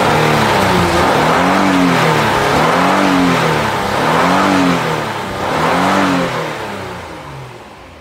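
2016 Honda Pilot's 3.5-litre V6 engine revved up and down about four times, then dropping back toward idle near the end. It revs cleanly and sounds a lot better now that the faulty rocker arm oil pressure switch has been replaced.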